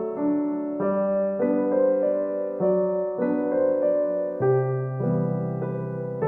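Background piano music: a gentle, slow piano piece with notes changing about every half second.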